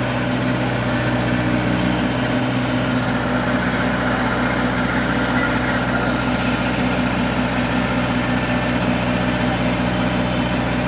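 Tractor's diesel engine running steadily at an even speed, with a faint high whine joining about six seconds in.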